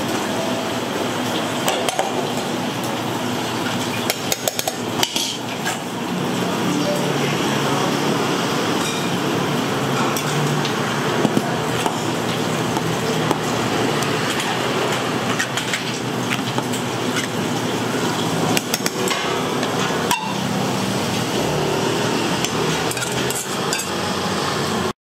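Kitchen clatter of pots, dishes and utensils at a busy street-food stall, with frequent sharp knocks over a steady background din.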